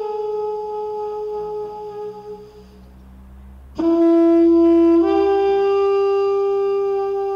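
Music of long held wind-instrument notes. One note sags slightly and fades out. After a short lull, a louder note comes in, steps up in pitch about a second later and holds.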